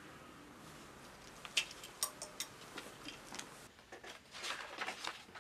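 Light, irregular clicks and short rustles of small objects being handled, starting about a second and a half in and growing busier and louder near the end.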